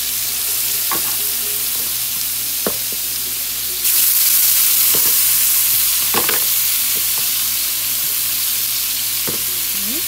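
Chicken pieces sizzling in hot oil in a nonstick frying pan. The sizzle grows louder about four seconds in as more pieces are laid in. Metal tongs click lightly against the pan several times.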